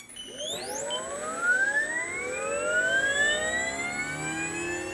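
RC scale model helicopter (Comanche RAH-66 with a rebuilt fenestron tail rotor) spooling up from a standstill: a click, then a whine made of many pitches that rises steadily as the main and tail rotors gather speed.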